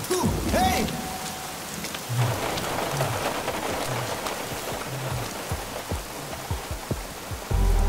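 Steady rain falling on a wet road, with a low pulse about once a second underneath.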